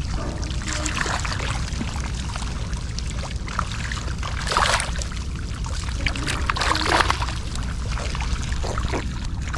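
Shallow water sloshing and splashing as someone wades through it, with louder splashes about halfway through and again a couple of seconds later, over a steady low rumble.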